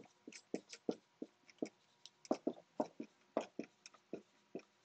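Dry-erase marker writing on a whiteboard: a run of short, quick marker strokes at irregular spacing, about four a second, as letters are written out.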